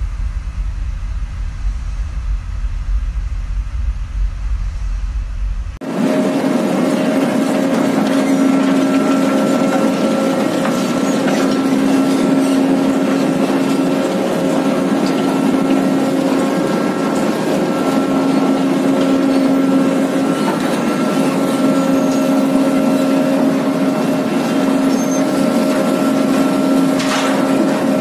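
Low wind rumble on the microphone, then, about six seconds in, an abrupt change to the steady drone of a continuous bucket-chain ship unloader digging coal out of a cargo hold. A few held machine tones ring over a hiss of noise from the machinery and the coal.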